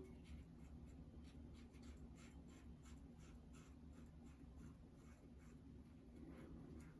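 Faint, repeated scratching of an old Schick 500 injector razor blade cutting through lathered stubble in short strokes.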